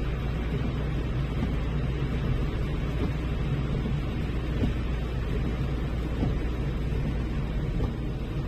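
Steady low rumble of a car's engine and road noise heard inside the cabin while driving slowly.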